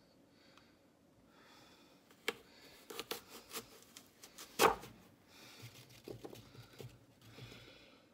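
Light clicks and knocks of cored apple pieces and kitchen utensils being handled on a counter, with one louder knock about four and a half seconds in.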